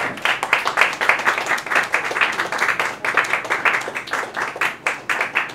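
Applause: many hands clapping in a dense, irregular patter.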